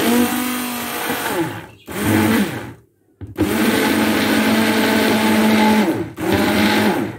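Hand-held immersion blender puréeing chunks of roasted tomato and onion in hot liquid in a pot, switched on in four bursts with short pauses between, the motor's pitch dropping as it slows at the end of each burst.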